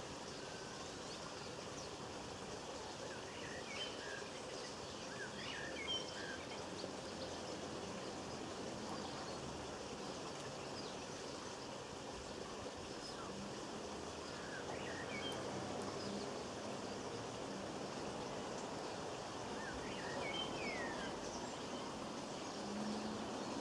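Small garden songbirds giving short, high chirps and quick down-slurred calls in a few brief clusters, over a steady background hiss of outdoor ambience.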